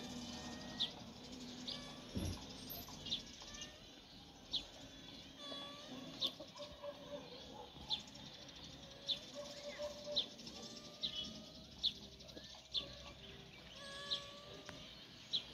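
Small birds chirping: one sharp, high chirp repeated roughly once a second, with softer bird calls behind it. A single brief thump about two seconds in.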